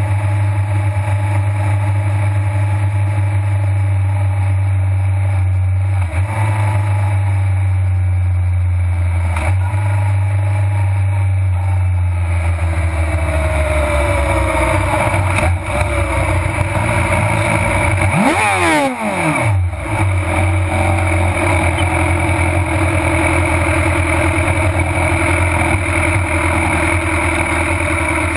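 Suzuki GSX-R 600's inline-four engine running at low revs as the bike rolls slowly, heard from on board, with the pitch easing down in places. About two thirds through there is a brief sweep of sharply changing pitch, and the engine sound cuts off abruptly at the very end.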